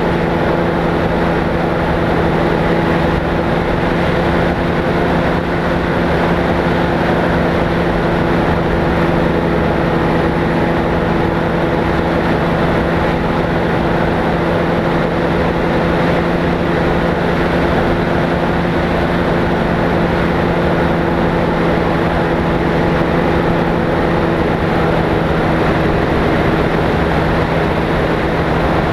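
Microlight trike's pusher engine and propeller running steadily at a constant pitch in flight, with a rush of air over the microphone.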